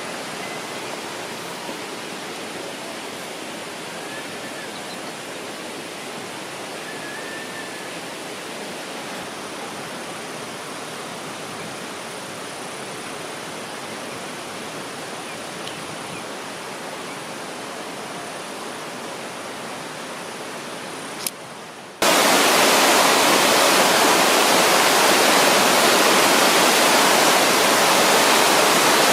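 Steady rush of running water. About two-thirds of the way through it cuts abruptly to a much louder, brighter rush.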